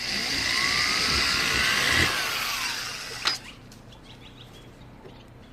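Power drill running for about three seconds, enlarging a hole in a car bumper. Its whine rises and then falls away as it stops, followed by a single click.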